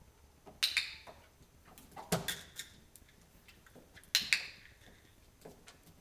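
Handheld training clicker clicking three times, about a second and a half to two seconds apart, each a quick double click.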